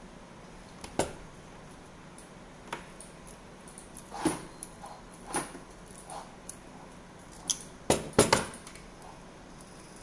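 A coaxial cable end being scraped and trimmed with a hand blade, giving a string of short, sharp scrapes and clicks spaced about a second apart, with the loudest cluster near the end.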